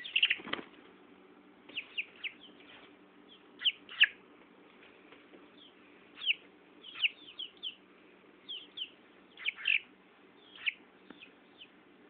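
Tetra Tint chicken chick peeping: short, high, falling peeps that come singly and in quick clusters every second or so. A short scuffle of movement sounds about half a second in.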